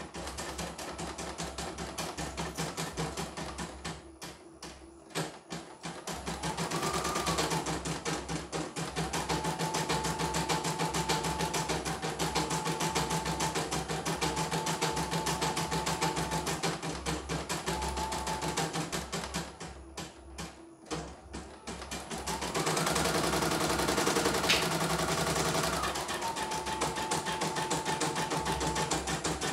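CNY E900 portable embroidery machine stitching a test design after its repair: rapid, even needle strokes over a steady whine. The stitching pauses briefly twice and runs louder for a few seconds near the end.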